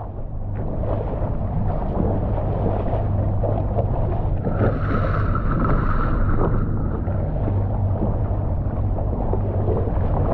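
Small boat's motor running steadily under way, with wind and water noise on the microphone. A faint steady high tone sounds for a couple of seconds about halfway through.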